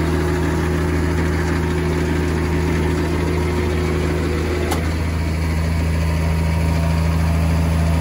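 NDE vertical mixer feed wagon and the tractor driving it running steadily, a constant low machine hum. About halfway through, a higher steady whine cuts off with a short click.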